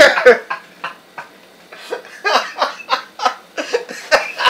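Men laughing hard: a loud burst at the start, a short lull, then repeated bursts of laughter from about two seconds in.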